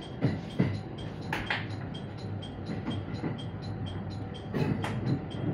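Train wheels clacking over rail joints and points at low speed, in three quick pairs as each bogie's wheelsets cross, over the steady low running noise of the train heard inside the driver's cab.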